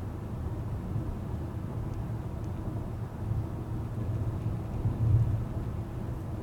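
Car driving at road speed, heard from inside the cabin: a steady low rumble of engine and tyre noise, a little louder about five seconds in.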